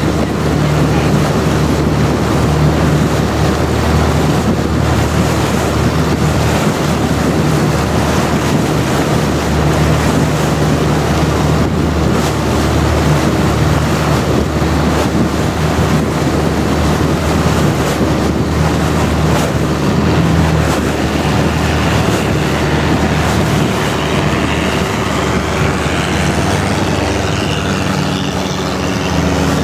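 Long-tail boat's engine running steadily at cruising speed, a loud, even drone, with the rush of wind and water over it. The note shifts slightly near the end.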